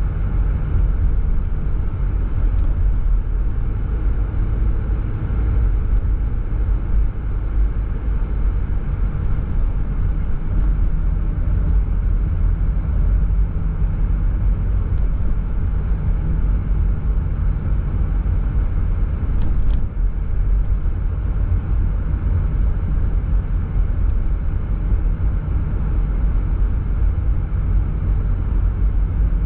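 Car driving at a steady speed: a constant low rumble of road and engine noise.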